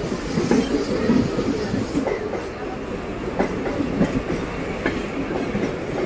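Mumbai suburban electric local train running past the platform: a steady rumble of the coaches, with scattered clacks of the wheels over the rail joints.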